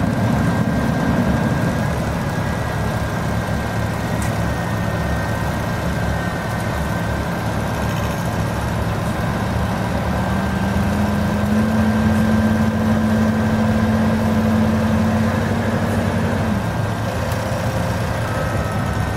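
Heavy vehicle engine idling steadily. Its pitch steps up about ten seconds in, holds, and drops back a few seconds before the end.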